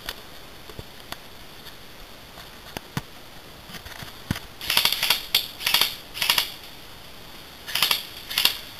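Footsteps crunching through dry leaf litter and undergrowth: a few faint clicks, then about halfway in four quick crunches, followed by two more near the end.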